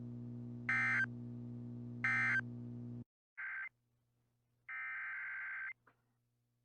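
Emergency Alert System SAME digital data bursts, a warbling shriek. The first is three short bursts about 1.4 s apart over a steady electrical hum, the end-of-message code that closes the weather-radio broadcast. The hum cuts off suddenly, and two more bursts follow, one brief and one about a second long, the data header of the next alert.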